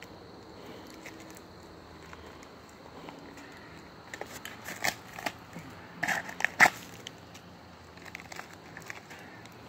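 Dirt and buried dump debris crunching and crackling as a gloved hand digs into the side wall of a pit. A flurry of crunches comes about four to seven seconds in, the loudest near its end, followed by a few small clicks.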